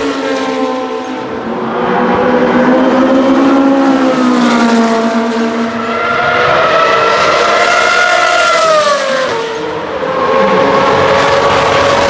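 Classic Formula One cars' racing engines running at high revs, a high-pitched wail whose pitch climbs and falls several times as the cars accelerate and pass, with short lulls about a second in, halfway through and near the end.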